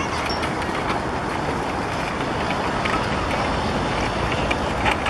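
Steady outdoor city noise, mostly the rumble and hiss of passing road traffic.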